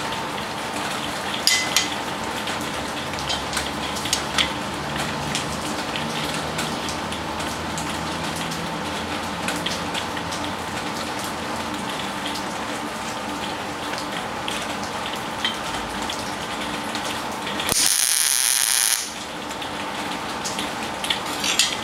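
A steady, even hiss like rain, with a faint hum under it. About three-quarters of the way through, a loud, high hiss lasts for about a second.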